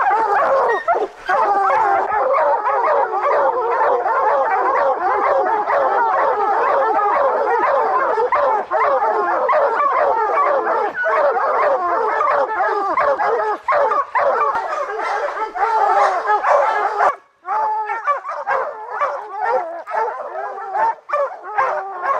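A pack of young bear hounds barking and bawling treed together at the base of a tree, the sign that a bear is held up the tree. The dense chorus breaks off suddenly near the end and carries on as fewer, separate barks.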